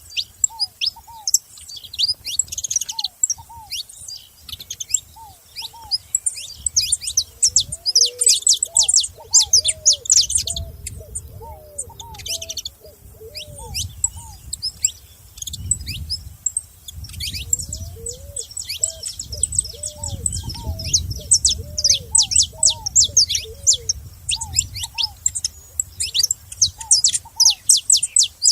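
Several saffron finches chirping and trilling in a dense, continuous stream of rapid high notes.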